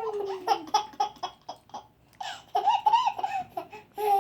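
Baby laughing in quick runs of short bursts, set off by a fake sneeze, with a brief pause about halfway through.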